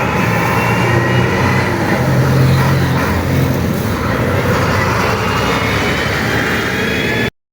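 Aircraft engines running loudly, a steady drone with a high whine that slowly rises in pitch; it cuts off suddenly near the end.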